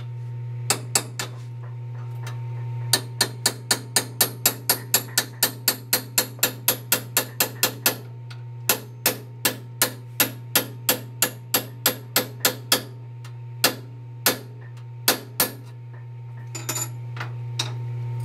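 Ball-peen hammer striking a steel drift against a stainless steel exhaust header flange: sharp metal-on-metal blows in quick runs of about three a second, with short pauses and a few last taps near the end, over a steady low hum.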